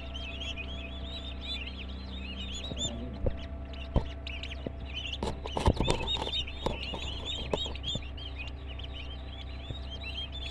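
Many turkey chicks peeping at once, a continuous chorus of short, high, overlapping chirps. A few sharp knocks and thumps come a few seconds in, loudest around the middle.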